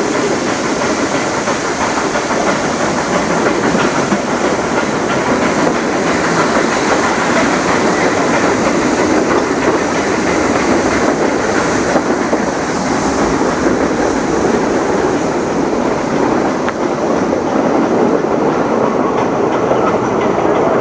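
Nilgiri Mountain Railway passenger coach running along the metre-gauge track: a steady, loud clatter of wheels on rails, heard from the open doorway.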